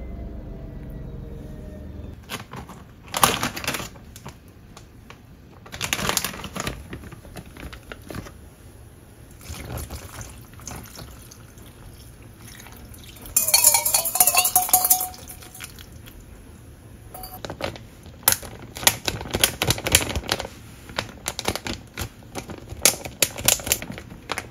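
Plastic zipper bag crinkling and rustling as it is handled, with liquid poured into it for a few seconds about halfway through, followed by a long run of quick crinkles as the filled bag is pressed and handled.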